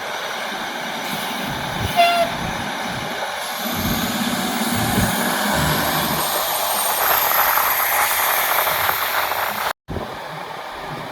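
A heavy vehicle running, most likely a fire engine, with a steady rushing noise over it, a short horn-like tone about two seconds in, and a brief dropout near the end.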